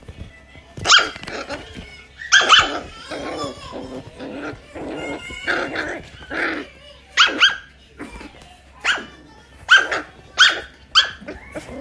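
Shetland sheepdog puppy barking: a string of short, high barks at irregular intervals, some coming in quick pairs.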